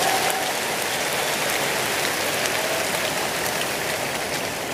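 Large congregation applauding, a dense, steady clatter of many hands that eases slightly toward the end.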